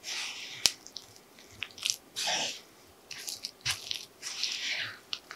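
A spatula stirring flour and liquid in a wooden bowl, working it into a shaggy dough: a series of short, crunchy scraping strokes, with one sharp click about two-thirds of a second in.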